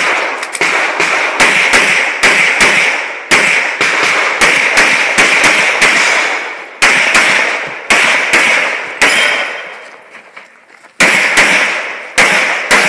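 Semi-automatic pistol fired rapidly in quick pairs and short strings, each shot sharp with a short echo. Firing stops for about a second and a half a little past two-thirds of the way through, then resumes in pairs.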